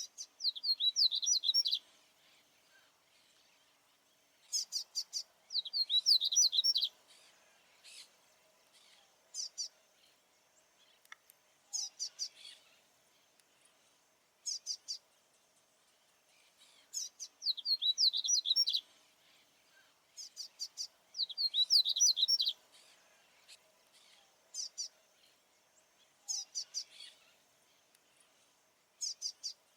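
Male papa-capim baianinho (Sporophila seedeater) singing territorially: bright, fast phrases of quick sweeping notes, each one to two seconds long, repeated every few seconds with short chirps between.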